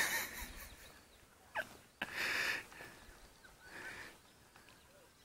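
Faint bird chirps in the open, with short bursts of hiss close to the microphone: one at the start, a longer one about two seconds in, and a weaker one near the end. The cat makes no call.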